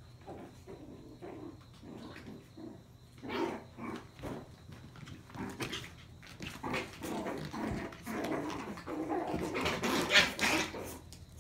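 Maltese puppies making small play noises as they romp and wrestle, the loudest burst about ten seconds in.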